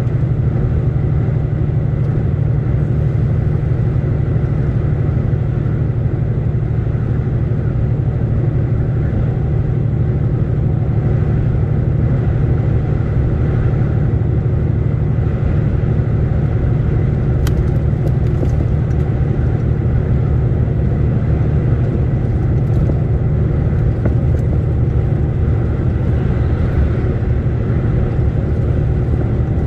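Steady low drone of a DAF truck's engine and tyres at road speed, heard from inside the cab.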